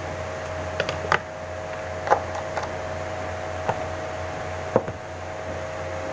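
Light, sharp knocks and clicks of lab items being handled and set down on a bench: about six, scattered through the first five seconds, the loudest about two seconds in and just before five seconds. They sit over a steady hum.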